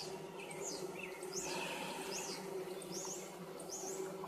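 Russian honey bees from a freshly installed package buzzing around the open hive: a steady hum. A bird sings short repeated chirps over it, about one every half second.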